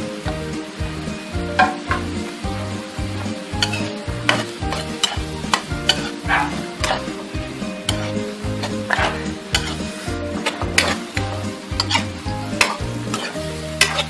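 Metal ladle stirring and scraping squid, shrimp and sliced onion in a sizzling wok, with frequent sharp clinks of the ladle against the pan.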